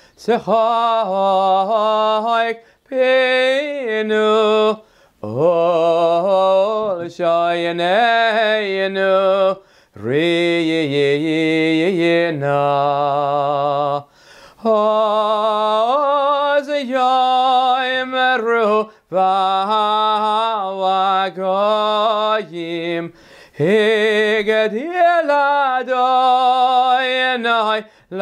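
Cantor's solo male voice singing Hebrew psalms in chazzanut style, unaccompanied, in long phrases with a wavering vibrato, broken every few seconds by short pauses for breath.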